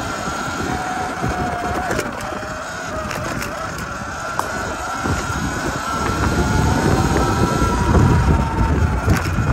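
Sur-Ron electric dirt bike's motor whining, its pitch drifting slowly up and down, with a few light clicks in the first half. Wind buffets the microphone, growing much louder about halfway through.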